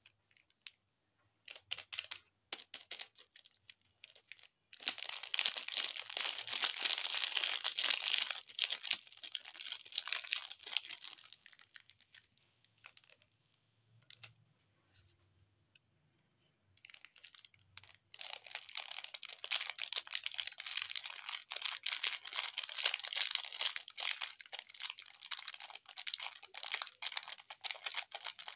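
Plastic candy and lollipop wrappers crinkling and crackling under fingers as they are handled, in two long spells with a quieter stretch of a few light clicks between them.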